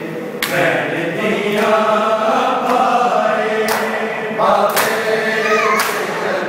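A group of men chanting a mourning noha together during matam, with loud slaps of hands on bare chests about every second.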